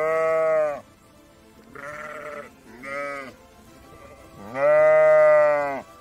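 Sheep bleating: four bleats, a short faint one in the middle and the longest, loudest one near the end.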